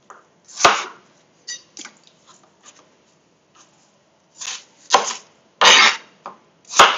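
Kitchen knife chopping peeled apples on a chopping board: irregular sharp chops, a few loud ones among lighter taps.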